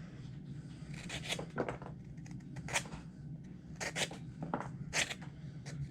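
A sharp knife blade slicing through thick leather harness material in a series of short, crisp cutting strokes.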